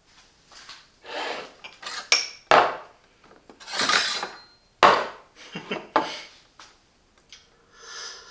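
Small ceramic espresso cups and saucers being handled: clinks, scrapes and two sharp knocks of crockery.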